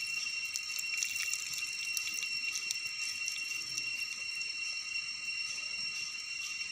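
Water trickling and dripping from the open end of a thin black plastic water pipe onto wet dirt. A steady high-pitched whine runs underneath.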